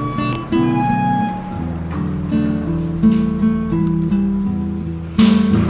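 Background music played on acoustic guitar: a run of plucked notes, with a louder strum near the end.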